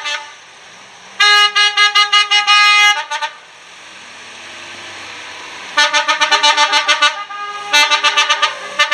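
A multi-note musical car horn playing a quick tune in three loud bursts: about a second in, around six seconds, and near the end. Between the bursts, passing car engines run quietly.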